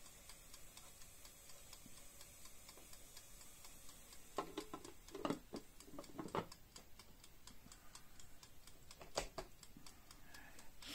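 Steady, fast, faint ticking throughout. Over it come a few knocks between about four and six and a half seconds in as the clear plastic lid of an electric food steamer is handled and set back on, then a single click a little after nine seconds.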